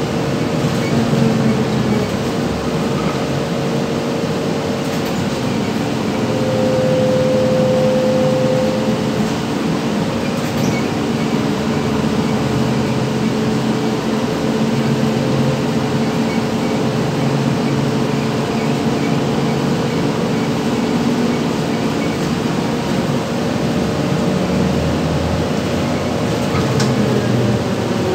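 Cabin running noise of a ZiU-682G trolleybus on the move: a steady electric traction-motor hum with several held tones over tyre and road noise. Near the end the motor pitch begins to fall as it slows.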